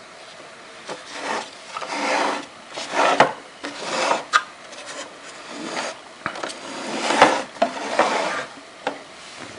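Repeated rubbing and scraping of parts being handled, in strokes of about half a second to a second, with a few sharp clicks in between.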